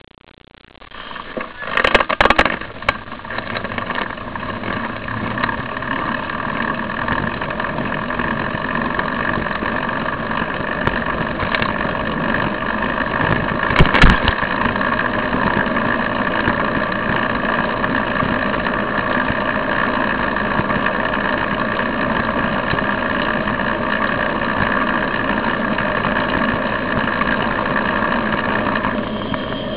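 Steady noise of a bicycle-mounted camera riding along a street: road vibration and wind on the microphone. A few knocks come as the bike sets off, and a sharp jolt about halfway through.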